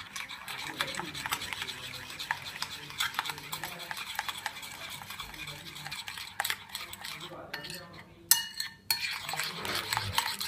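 Metal spoon briskly stirring a thin shrimp-paste sauce in a china bowl: rapid scraping and clicking against the bowl. Near the end the stirring pauses briefly and there is one louder, ringing clink.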